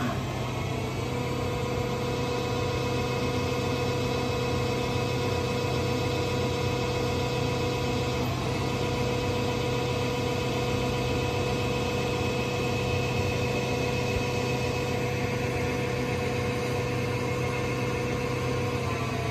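Okuma Genos L3000-E CNC lathe turning a metal bar: a steady whine and hum from the spinning spindle and machine. The pitch shifts briefly as the spindle speed changes about a second in and again near the end.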